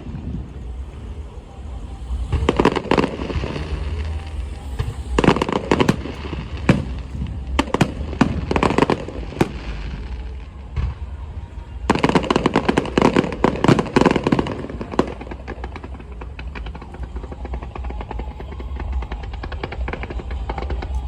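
Electronically fired aerial fireworks going off in rapid volleys of bangs and crackles. They come in several salvos, the densest lasting about three seconds from around twelve seconds in. A steady low rumble runs underneath.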